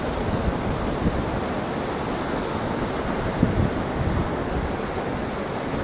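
Wind buffeting the microphone in low, uneven gusts over a steady rush of surf breaking on the rocky shore.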